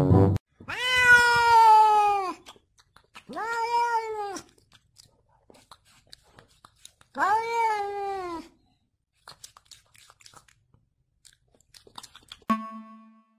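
Domestic cat meowing three times: one long drawn-out meow, then two shorter ones, each rising and then falling in pitch.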